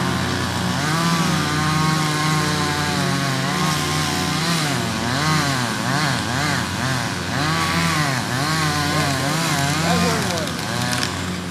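Two-stroke chainsaw cutting into a tree trunk, its engine pitch dipping under load and recovering over and over, dropping off near the end.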